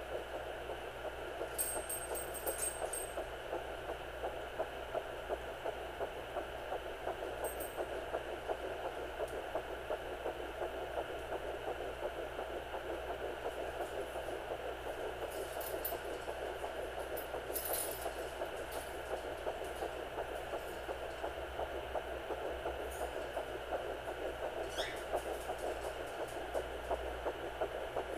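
Fetal heartbeat at 9 weeks picked up through a Sonoline B handheld doppler: a rapid, even whooshing pulse over the doppler's steady hiss. A few brief faint clicks break in here and there.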